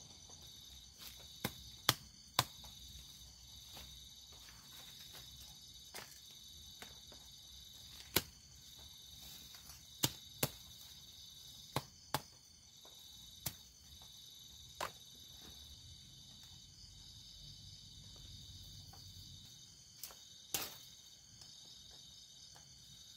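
A steady high-pitched chorus of night insects, broken by about a dozen sharp knocks at uneven intervals as tent pegs are hammered into the ground.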